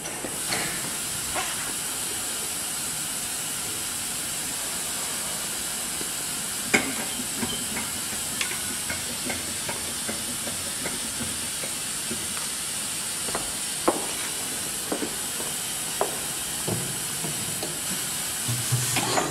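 Steady hiss of compressed starting air on a 1905 diesel engine as it is being started, with a few scattered sharp metallic clicks.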